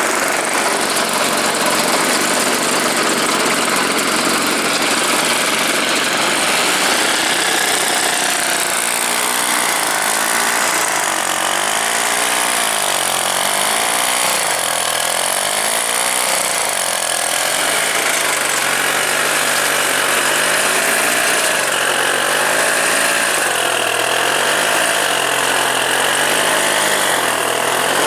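Homemade snowblower's two-stroke Druzhba chainsaw engine running loudly and steadily; about a third of the way in its speed starts rising and falling again and again, every second or two.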